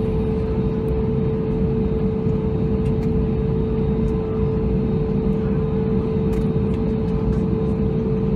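Airbus A320neo's Pratt & Whitney geared turbofan engines at taxi idle, heard from inside the cabin: a steady low rumble with a constant mid-pitched drone.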